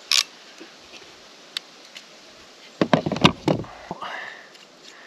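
A hand crimping tool closes on a wire connector with one sharp click just after the start, crimping it onto the bared solar cable. About three seconds in comes a short clatter of knocks as the tool is set down on the camper roof.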